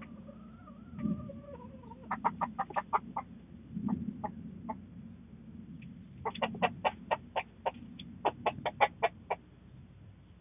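Chickens clucking: a drawn-out falling call near the start, then quick runs of short clucks, about five a second, over a steady low hum.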